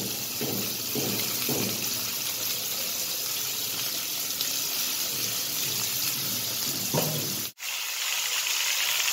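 Sliced potato and pointed gourd frying in hot oil in an iron karahi: a steady sizzle. It cuts out for a moment about three-quarters of the way through, then carries on.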